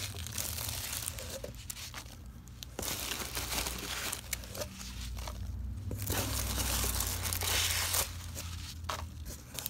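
Hands rummaging through foam packing peanuts in a cardboard box, rustling and crinkling in several bursts with short pauses between them.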